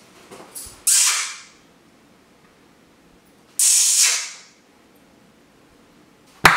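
Two sharp hissing "psst" sounds made with the mouth to get the attention of an old, nearly deaf dog, about a second in and again near the middle, each fading quickly. A sharp click comes near the end.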